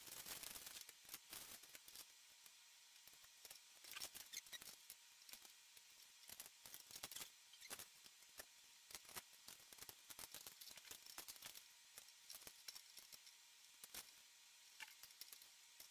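Faint, irregular clicks and rustles of hands handling small hardware and plastic packaging while car speakers are fitted to mounting rings and wiring harnesses.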